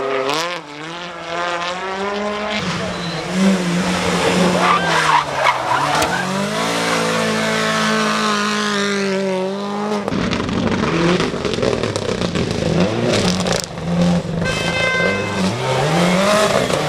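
Rally car engines revving hard, the pitch climbing and dropping again and again as the cars accelerate, shift and lift, with tyre noise on the road surface. The sound changes abruptly about ten seconds in, as a second car takes over.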